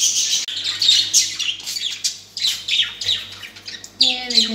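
Caged budgerigars chirping and chattering, many quick, high, falling chirps overlapping. About four seconds in, a louder, lower, drawn-out call starts.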